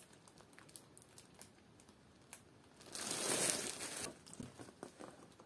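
Clear plastic wrapping crinkling as a decorative cushion in its bag is handled: a few faint crackles, then a louder rustle lasting about a second, around three seconds in.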